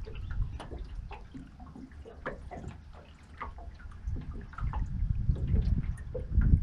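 Small splashes and drips of water, in scattered short ticks, with wind buffeting the microphone more strongly from about four seconds in.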